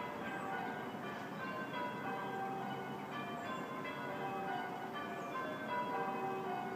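Church bells ringing, several bells struck one after another so that their tones overlap and hang on.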